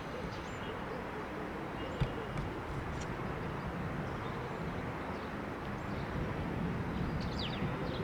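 Steady low rumble of outdoor background noise with faint, short bird chirps and a single brief knock about two seconds in.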